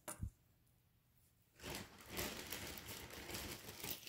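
A short knock, then, from about a second and a half in, a couple of seconds of continuous rustling and crinkling of packaging being handled.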